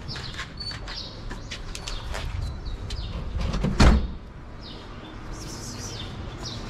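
Rear door of a Dacia van shut with a single loud thump about four seconds in, while small birds chirp in the background.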